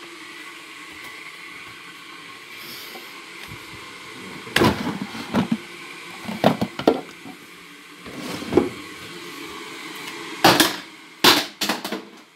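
Plastic food-storage containers and lids clattering and knocking against each other as they are rummaged through, a series of sharp knocks starting about four seconds in; the loudest clatters, near the end, come as a plastic lid falls to the floor. Before the clattering, a steady hum from the electric kettle heating up.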